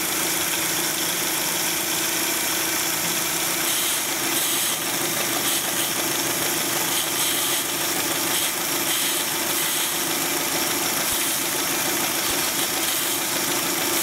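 2000 Dodge Neon's 2.0-litre four-cylinder engine idling with a misfire while water is squirted in short bursts onto the number one intake runner. Water sucked in through the torn intake manifold gasket makes the idle run rougher, which confirms the vacuum leak as the cause of the cylinder-one misfire.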